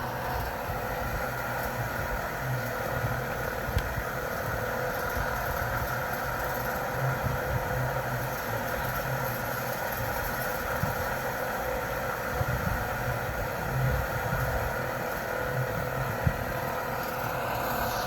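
Electric fan running steadily: an even whir of moving air over a constant motor hum, with a few faint ticks.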